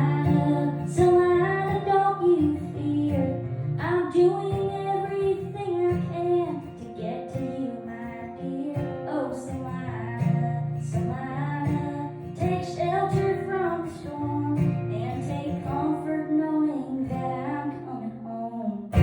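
Music: a woman singing a slow country-style melody over acoustic guitar.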